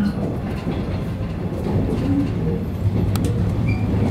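Inside a JR West 115 series electric multiple unit running out of a station: a steady low rumble of traction motors and wheels on rail. About three seconds in there is one sharp click of a wheel over a rail joint.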